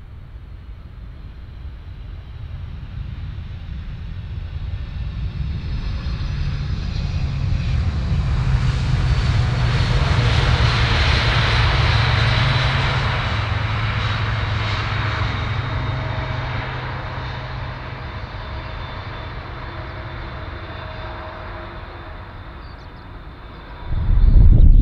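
Twin-engine jet airliner's engines on its landing roll: a steady rumble with a high whine that swells to a peak about ten seconds in, then slowly fades. Near the end a sudden loud low rumble cuts in.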